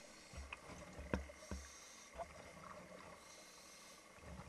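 Mostly quiet, with a few faint knocks and low thumps about a second in.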